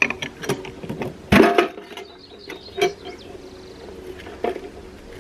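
Metal ammo can being handled and opened: a few knocks and clanks of the latch and lid, the loudest about a second and a half in.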